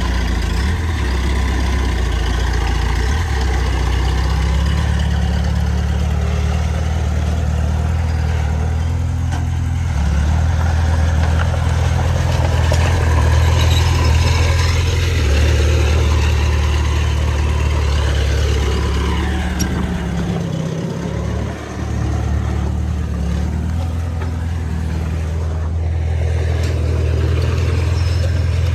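Heavy diesel engine of earthmoving machinery running under varying load, its low drone stepping up and down in pitch a few times, with a brief dip about three-quarters of the way through.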